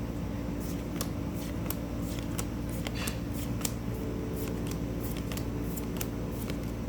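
Pokémon trading cards being handled and flipped through one by one: irregular light clicks and slides of card stock, over a steady low hum.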